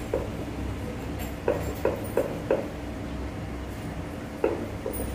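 Wooden rolling pin rolling dough on a rolling board, giving about seven short knocks, several close together in the middle and two more near the end, over a steady low hum.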